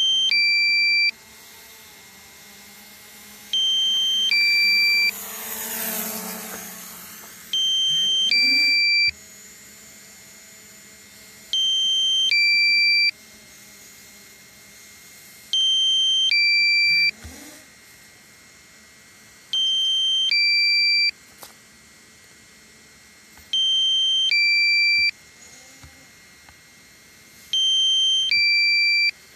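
A two-note electronic alert beep, a higher tone then a lower one, repeating about every four seconds. A rushing noise swells and fades around six seconds in.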